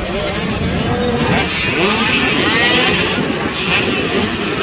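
Several youth motocross bikes ridden around the track, their engine notes overlapping and repeatedly rising and falling as the riders open and close the throttle.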